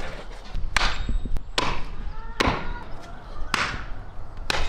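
A knife chopping on a cutting board: four separate, sharp strikes, each a single cut.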